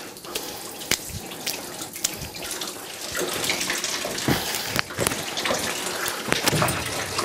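Whey running and splashing out of a cloth-wrapped lump of fresh sheep's-milk cheese as it is squeezed and twisted by hand, with sharp wet splats into a tub below. It grows louder from about three seconds in.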